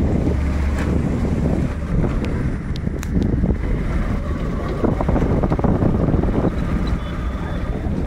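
Wind buffeting a phone's microphone over the steady rumble of a moving vehicle on a road.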